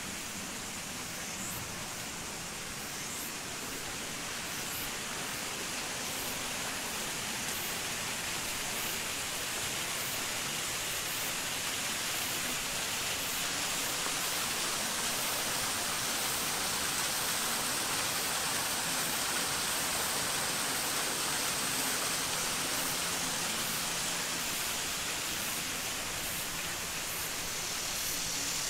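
Steady rushing noise, slowly growing louder.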